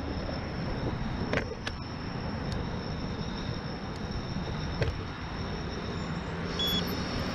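Steady road and wind rumble of an e-bike being ridden, with a few sharp clicks and a faint high steady whine.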